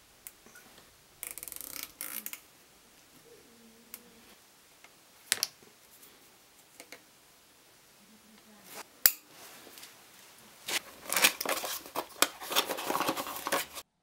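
Plastic zip ties being worked and pulled tight around a bicycle chainstay to hold an e-bike speed sensor: scattered clicks and rustles, a sharp snap about nine seconds in, then a long run of rapid ratcheting clicks near the end.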